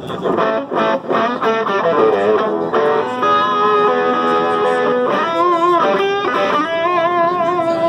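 1959 Gibson Les Paul electric guitar played through an amplifier: a run of quick single notes, then longer held notes with wide vibrato from about halfway through.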